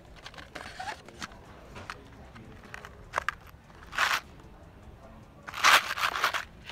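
A blister pack of wire finishing nails being taken off a store pegboard and handled, making a few short bursts of noise, the longest and loudest about five and a half seconds in.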